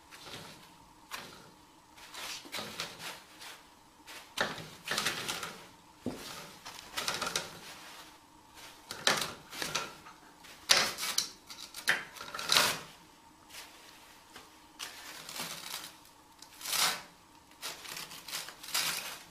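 Toilet paper rustling and crinkling in irregular bursts as a kitten paws at it and pulls it off the roll.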